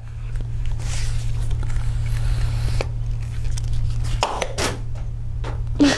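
Plastic toy water blaster being handled and aimed: light scrapes and knocks of hard plastic over a steady low hum, with a short sharp sound near the end.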